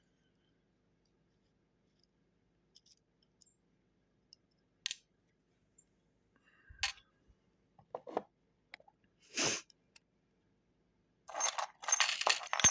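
Small metallic clicks and taps from a padlock and lock tools being handled, scattered a few seconds apart, then a run of denser metal clinking near the end.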